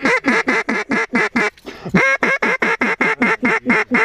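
Mallard duck call blown by a hunter: a fast run of short quacks, about five a second, then a louder, longer quack about two seconds in that starts another run. It is a comeback call to pull circling ducks back down.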